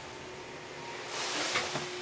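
Old traction elevator car in motion, heard from inside the cab: a low steady hum with a faint steady tone, and a soft rush of air that swells about a second in.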